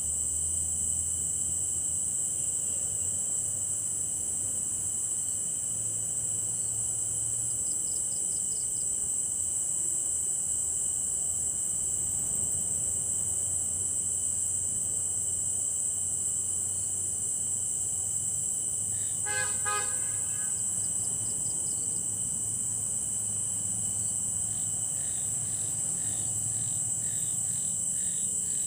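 Night insect chorus, crickets shrilling in a steady high-pitched drone. About two-thirds through, a short pulsing, pitched call cuts in for about a second, and fainter pulsing calls follow near the end.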